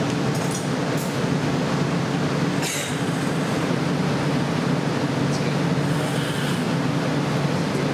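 Steady roar of a glassblowing hot shop's gas burners and blowers, with one brief sharp sound about a third of the way in.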